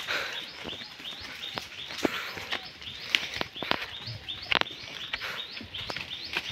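A bird calling in a rapid series of short chirps, about three a second. Scattered crunches and clicks of footsteps on dry, stony ground run underneath.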